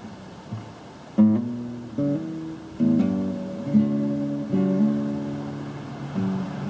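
Acoustic guitar playing an intro: chords strummed one after another, starting about a second in, each left to ring.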